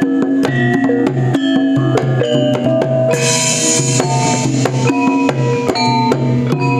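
Javanese gamelan ensemble playing an opening piece (gending pambuka) through the sound system: struck metallophone notes in a running melody over drum strokes, with a bright crash about three seconds in.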